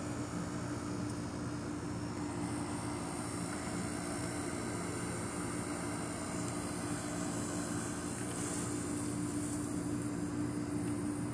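A steady mechanical drone holding one low pitch, with a brief hiss high up about eight seconds in.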